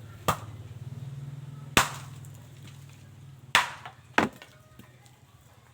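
Four sharp knocks, irregularly spaced, over a low steady hum.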